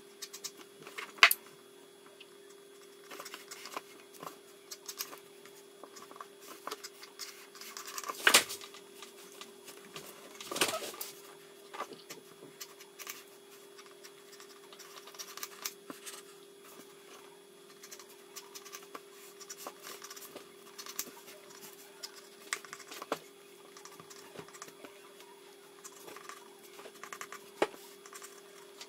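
Pencil scratching and tapping on drawing paper in quick, irregular strokes, with a few louder knocks. A steady hum runs underneath.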